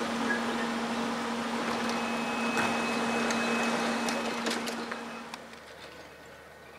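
DB class 423 S-Bahn electric multiple unit standing at the platform with its doors open, humming steadily, with a thin high tone for a couple of seconds midway and a few light clicks. The hum drops away to a quieter background after about five seconds.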